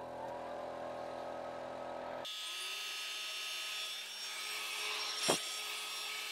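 Makeblock Laserbox Pro laser cutter running a cut job, its ventilation fan and air pump humming steadily. About two seconds in, the sound changes abruptly to a higher, hissier machine whir, with one sharp click near the end.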